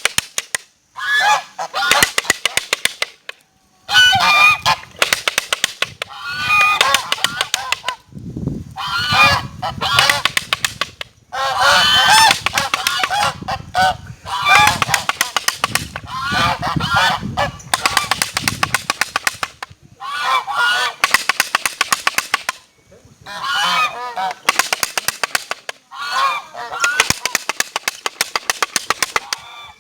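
Domestic geese honking loudly in repeated bursts of a few seconds each, with short pauses between. The calls carry a fast clicking, rattling pulse.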